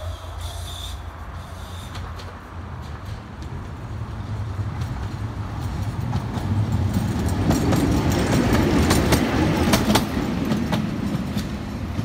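71-619KT tram passing at close range: its running rumble grows as it approaches, with wheels clacking over rail joints, loudest about eight to ten seconds in, then eases as it moves away.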